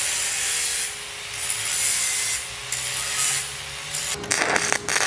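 Angle grinder grinding down the end of a root weld bead on a steel pipe to feather it for a restart. The grind swells and eases several times as the disc is pressed on and let off. About four seconds in it gives way to the crackle of a stick-welding arc.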